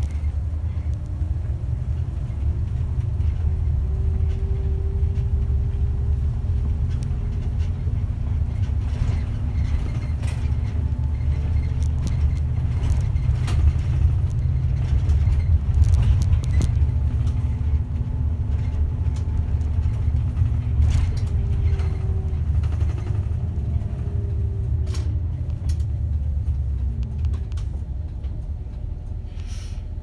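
A route bus's diesel engine heard from inside the cabin as the bus drives along, with a steady low rumble. The engine note climbs and falls a few times as the bus changes speed, and the cabin gives scattered rattles and clicks.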